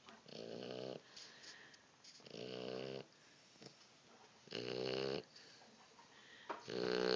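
Snoring: four pitched snores, each under a second long, coming about every two seconds, the last two the loudest.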